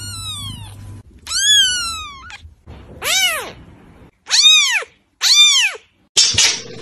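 Young kitten meowing five times in a row, high-pitched. The first two meows slide down in pitch, and the last three rise and then fall. A noisier, scratchier sound starts near the end.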